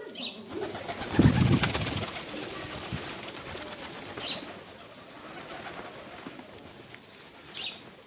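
Rock pigeons' wings flapping as they fly onto an outstretched arm and hand to eat grain. The flapping is loudest in a burst about a second in, then goes on as lighter flutters.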